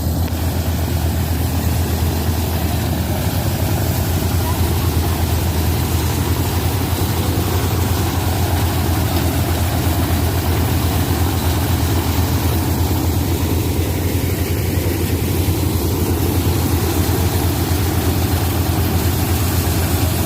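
Engine-driven paddy thresher running steadily, with a constant low engine drone.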